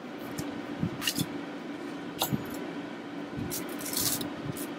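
Small clicks and scraping from handling and prying apart a TI-84 graphing calculator's plastic case and metal shield, with a longer scraping spell near the end, over a steady low hum.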